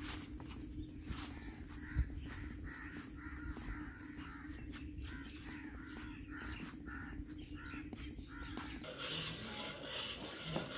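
Crows cawing over and over in quick succession, over a steady low hum.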